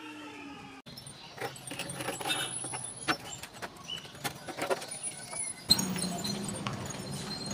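Hard plastic air-cooler housing panel handled and turned over on concrete: scattered clicks and knocks. A low steady rumble comes in about two-thirds of the way through.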